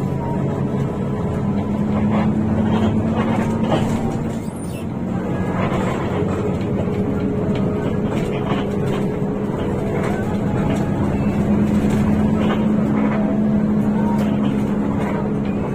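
Hino RK8 bus's rear-mounted diesel engine running steadily on the road, with road and body noise; the sound dips briefly about four and a half seconds in, then picks up again.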